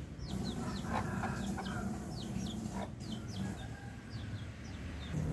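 Birds chirping: short, falling high calls repeated two or three times a second, with a few lower calls about a second in, over a low steady rumble.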